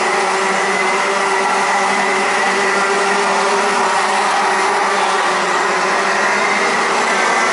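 Several Rotax 125 Max two-stroke kart engines running hard as a pack of karts laps the circuit: a steady, loud mix of engine whines at several pitches.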